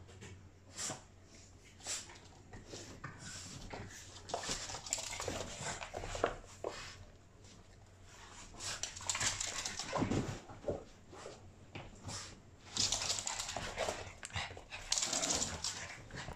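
A Boston terrier puppy and an adult Boston terrier play-fighting, whimpering amid scuffling and rustling on a dog bed and rug, in irregular bursts that come louder about a third, two thirds and near the end of the stretch.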